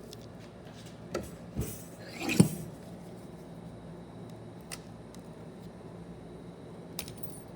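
Metal transmission parts and tools being handled: a few light clicks, then a louder metallic clink about two and a half seconds in, and a couple of faint ticks later.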